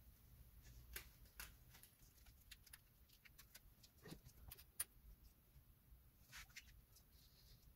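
Near silence with scattered faint clicks and taps of hands handling the cables and parts of an opened laptop; the sharpest tick comes about five seconds in.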